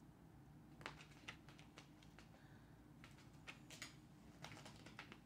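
Faint, irregular clicks and taps as a tabby kitten's claws catch on the woven fabric back and seat of a chair while it twists and rolls, over a low steady hum.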